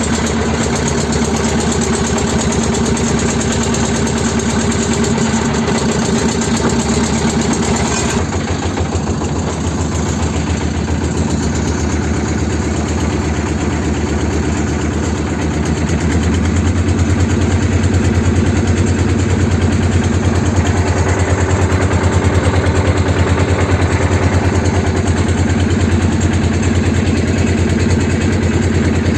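Engine of a pompong, a small wooden motorboat, running steadily. Its note shifts about eight seconds in, and it grows louder from about sixteen seconds.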